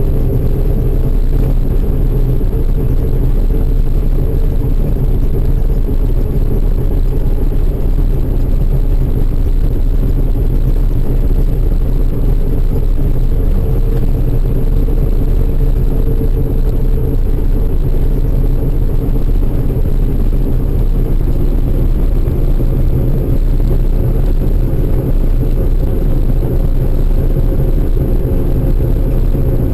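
Steady drone of a large diesel farm machine running under constant load, an even engine hum with a held tone above it and no change in speed.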